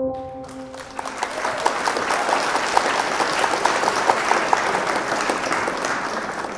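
Audience applauding, with many hands clapping; it swells in about half a second in and starts to fade near the end.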